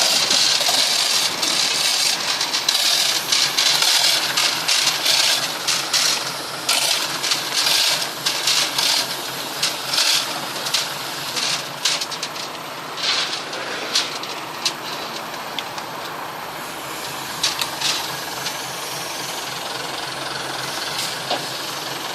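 Boat engine running, with irregular metallic clattering and rattling over it that thins out after about fifteen seconds, leaving a steadier running noise. The engine is described as broken.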